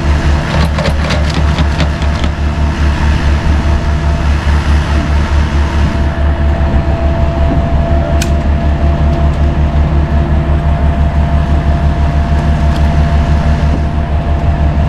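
Heavy diesel engine running steadily with an even low throb and a constant whine above it, while a winch drags a stuck mini excavator up a steep slope. A quick run of clicks comes from about half a second to two seconds in.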